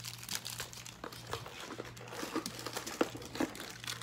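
Plastic wrappers of Milka Oreo chocolate bars crinkling, with a cardboard display box rustling, as the bars are handled and sorted. The crinkles and clicks come irregularly over a faint steady low hum.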